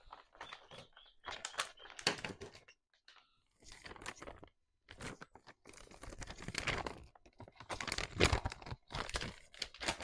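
Trading-card pack packaging being torn open and crinkled by hand, in irregular bursts of rustling and tearing.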